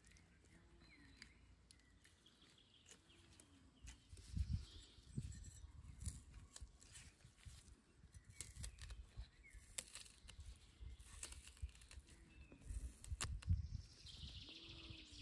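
Faint handling sounds of gloved hands working a knife and a cut orange over a rock: scattered small clicks and soft low knocks and bumps, busier from about four seconds in. Faint bird chirps come through now and then.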